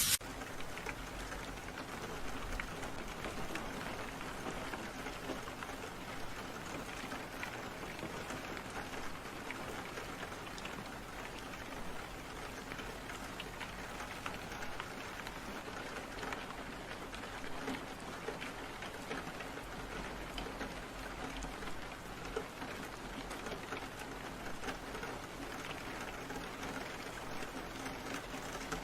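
Steady rain falling, a dense patter of small drops.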